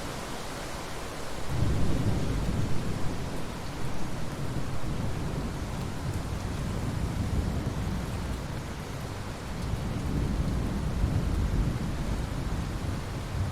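Steady rain hissing, with thunder rolling in about a second and a half in: a long, low rumble with uneven peaks that fades a little and swells again near the end.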